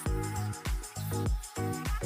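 Background music with a steady beat: deep kick drums about every half second under sustained synth tones.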